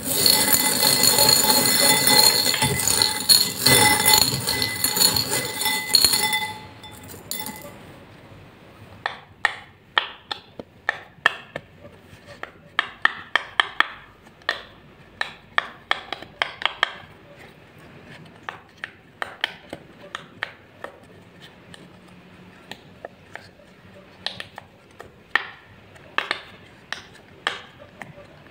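Small beads stirred by hand in a glass bowl, a loud dense clinking with ringing glassy tones that stops about six seconds in. Then a silicone pop-it fidget toy being pressed: a long irregular series of sharp little pops, often several in quick succession.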